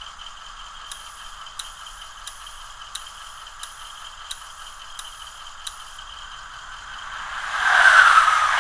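Model locomotive sound decoder played through the model's small speaker: a windshield wiper effect, eight evenly spaced ticks about one and a half a second over the locomotive's steady running sound. Near the end, a loud whoosh of rushing air swells up.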